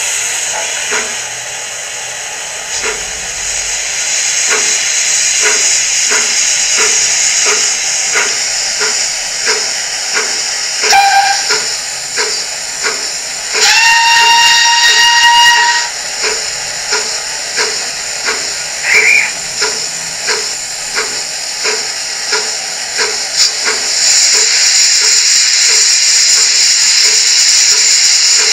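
Zimo DCC sound decoder playing a BR Standard 9F steam locomotive sound through a small baby boomer speaker in the model: steady steam hiss with regular chuffs about every three-quarters of a second. A short whistle sounds about 11 seconds in, and a longer whistle about two seconds long at around 14 seconds. The hiss grows louder near the end.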